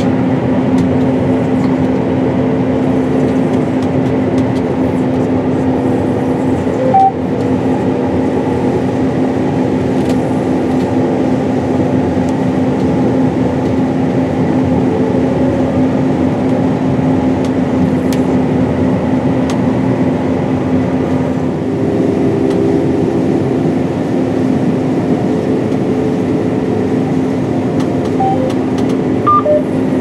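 John Deere S790 combine running steadily while harvesting, heard from inside the cab: an even machine drone with a constant low hum.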